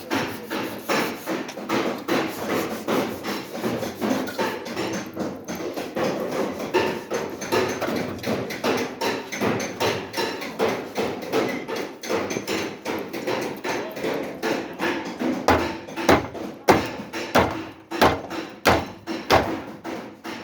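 Repeated hammer blows on car body sheet metal, a few strikes a second in steady panel-beating work, with heavier, more spaced-out blows in the last few seconds.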